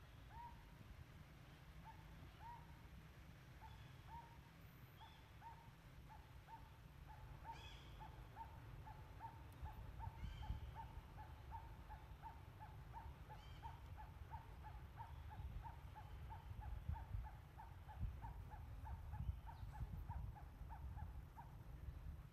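A bird calling a long series of short, rising notes. They are spaced at first, then quicken to about three a second and grow louder, stopping shortly before the end. A low rumble runs underneath.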